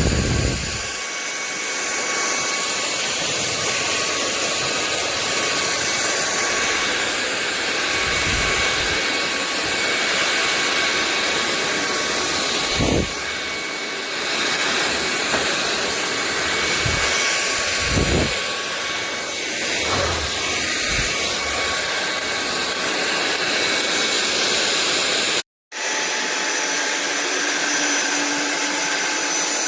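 Sulean X8 cordless stick vacuum running, a loud steady rush of suction air over a high motor whine, with a few dull low bumps. Near the end the sound cuts out for a moment and comes back with a different, lower tone.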